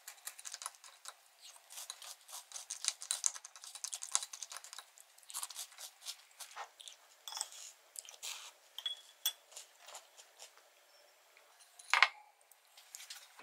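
Wooden spoon scraping and clinking against a ceramic bowl while cereal is eaten, as many small irregular clicks. One louder knock comes near the end.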